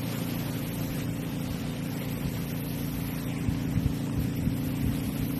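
A boat motor running steadily, with a few short low knocks in the second half.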